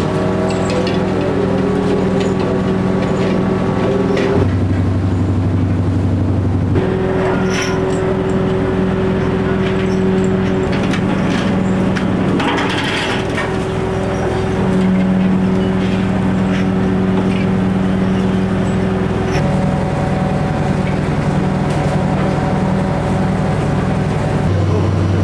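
Fishing trawler's engine and hydraulic deck machinery running with a steady drone while the trawl gear is hauled aboard, with scattered clanks. The drone's pitch shifts abruptly several times, and a short splashing hiss comes about halfway through.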